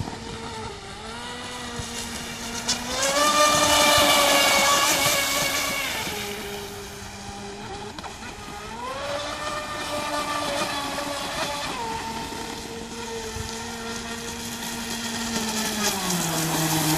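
Pursuit RC speedboat's 56mm brushless motor whining at speed over the hiss of its spray, the pitch stepping up and down several times as the throttle changes. It is loudest about three to six seconds in, as the boat runs close.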